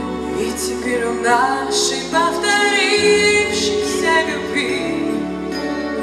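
A woman singing a slow pop ballad in Russian into a microphone over a sustained instrumental accompaniment. She holds a long note with vibrato about halfway through.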